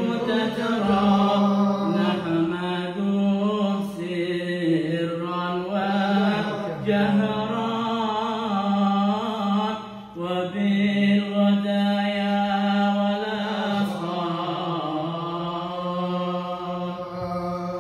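A man's voice chanting a long, ornamented religious recitation through a microphone and PA loudspeaker, in drawn-out melodic phrases over a steady low drone. There are brief breaks between phrases.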